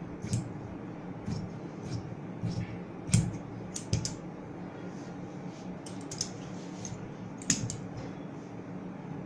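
Large tailor's shears cutting through three folded layers of fabric: a series of irregular snips and clicks, the loudest about three seconds in and again about seven and a half seconds in.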